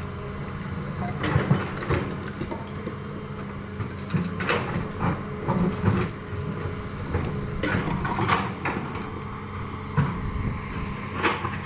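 Excavator engine running steadily, with repeated short knocks and clatters of stones being loaded into a truck.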